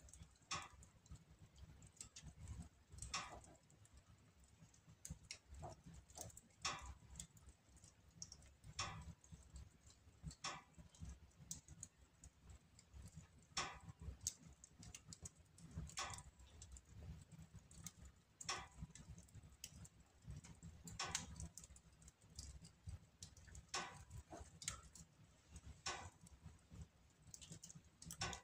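Wood logs burning in a fireplace grate, crackling quietly with irregular sharp pops and clicks over a low steady rumble.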